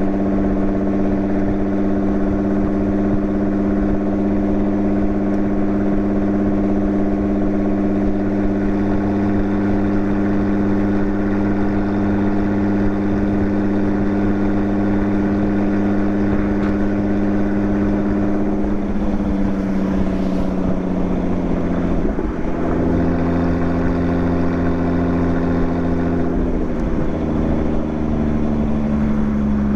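Lotus Exige 430 Cup's supercharged V6 running at steady revs with a constant drone. About two-thirds through, the pitch drops in a couple of steps, then it falls slowly near the end as the revs come down.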